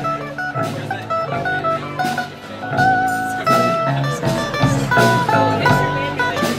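Live rock band instrumental break: a guitar solo of held single notes stepping up and down, over strummed guitar and a drum kit keeping a steady beat.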